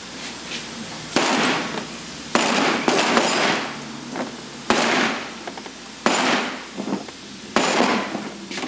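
Rolls-Royce power steering rack housing banged end-down on a steel workbench: a series of sharp metallic bangs about every second and a half, each ringing briefly, to jar loose a stuck rack and its internals.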